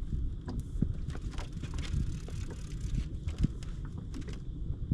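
Scattered irregular knocks and clicks from gear being handled on a fishing boat, over a steady low rumble.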